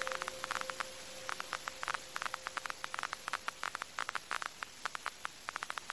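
Irregular crackling clicks over a steady hiss, like static. A faint held tone left over from the music dies away about a second in.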